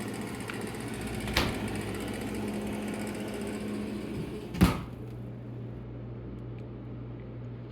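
Kenmore refrigerator's R12 compressor running with a steady hum and hiss. A light click about a second and a half in, then a thud about four and a half seconds in, after which the hiss drops away and a lower, quieter hum remains.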